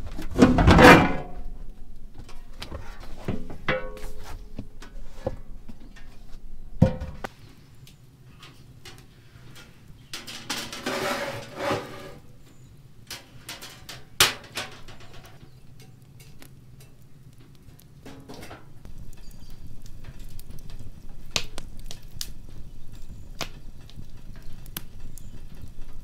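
Handling noises: a loud rustling clatter about a second in as a floor panel of the van's bed is lifted, then scattered knocks and clinks, with another rustling clatter around eleven seconds. A steady low hum runs through the last few seconds.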